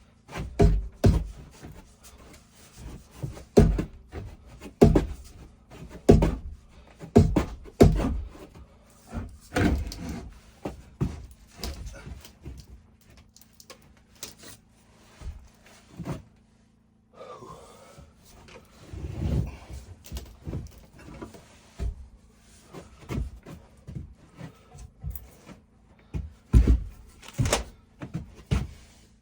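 Irregular wooden knocks and thuds from carpentry work, struck every second or two, with a short scraping stretch about two-thirds of the way through.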